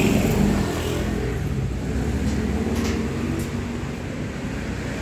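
A motor vehicle's engine running steadily, getting a little quieter over the few seconds.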